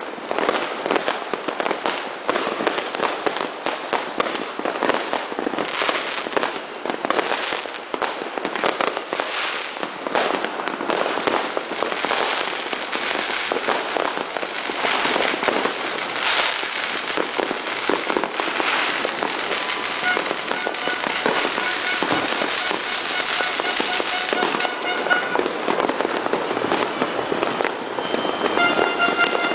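Many fireworks and firecrackers going off at once: a continuous barrage of overlapping bangs and crackles. A steady pitched tone joins in during the last third.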